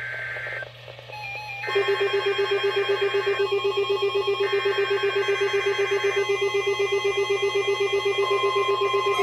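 NOAA Weather Radio weekly-test alert signalling from several receivers at once: the shrill data bursts of the SAME header, overlaid from about two seconds in by a low alert beep pulsing rapidly, with the steady 1050 Hz warning alarm tone coming in near the end.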